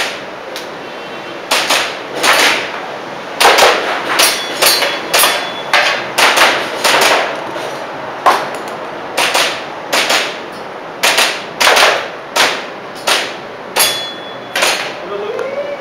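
Airsoft pistol firing a long, irregular string of about two dozen shots, often in quick pairs, during a practical-shooting course of fire. A short metallic ring follows a few of the shots.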